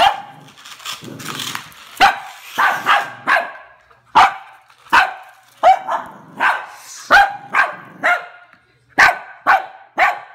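Cavalier King Charles spaniel barking repeatedly at a toy rat: about fifteen short, sharp barks, roughly one to two a second with brief pauses between runs.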